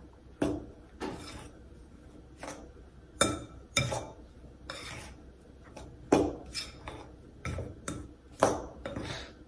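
Metal fork scraping and clinking against a glass mixing bowl in irregular strokes, roughly one or two a second, as it works crumbly pie dough.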